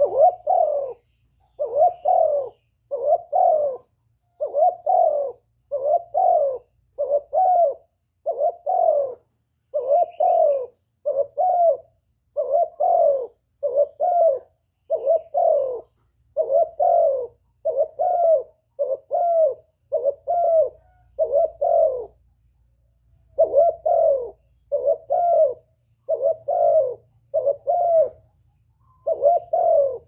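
Spotted dove cooing: a long series of low coo phrases at about one a second, the call used to stir up decoy doves. It breaks off briefly a little over two-thirds of the way through and then resumes.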